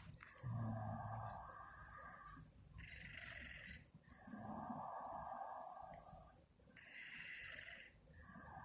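A woman snoring in her sleep in a steady breathing rhythm: a rasping breath of about two seconds alternates with a shorter, breathier one, the cycle repeating roughly every four seconds.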